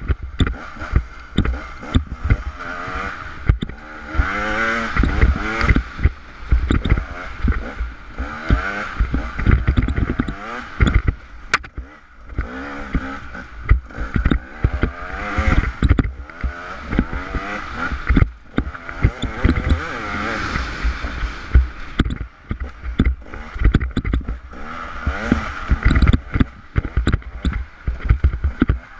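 Off-road motorcycle engine revving up and down on a rough trail, its pitch rising and falling every second or two, with frequent knocks and rattles from the rocky ground.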